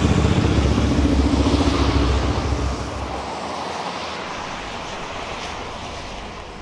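A motor vehicle's engine rumbles close by, then fades away about three seconds in, leaving steady street traffic noise.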